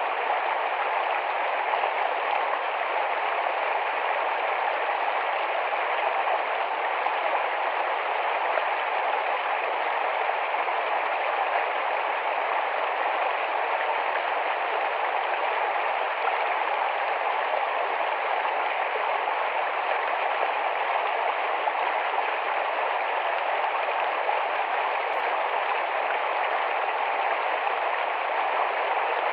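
A small, fast-flowing forest stream rushing steadily, an unbroken water noise.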